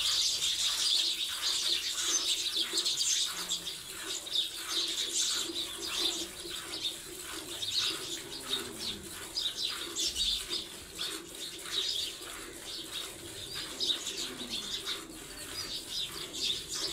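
Gir cow being milked by hand: a steady rhythm of quick milk squirts, each a short hiss.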